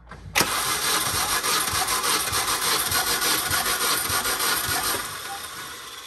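Starter cranking the 2006 Mini Cooper S's supercharged 1.6-litre four-cylinder engine during a compression test. It turns over in an even rhythm, starting about half a second in and dying away near the end, while the tested cylinder builds to about 120 psi, a much better reading.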